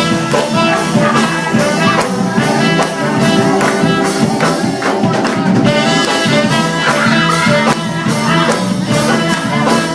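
A band playing live music with a steady beat, which carries on without a break.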